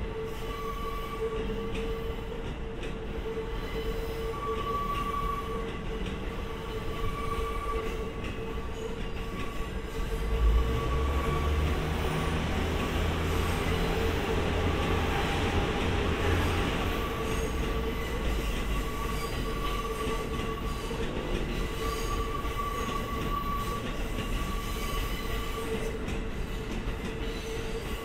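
Rail depot shunting sounds: a steady whine over a low hum from the rail vehicles, with a deeper rumble that builds about ten seconds in and eases off by about seventeen seconds.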